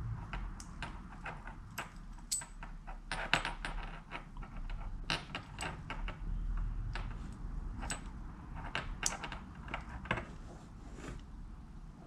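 Small metal cable plug and its wires being handled while they are soldered, giving irregular light clicks, taps and rattles.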